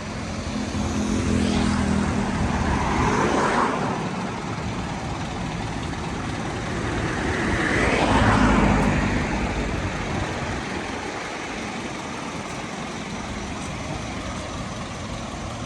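Road traffic: steady traffic noise with vehicles passing close by, one about two seconds in and a louder one around eight seconds in, each swelling up and fading away.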